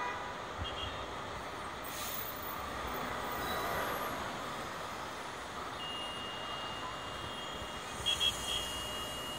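Busy city street traffic heard from high above: a steady wash of engines and tyres. There is a brief hiss about two seconds in, then a long thin high steady tone in the second half, with a few short beeps near the end.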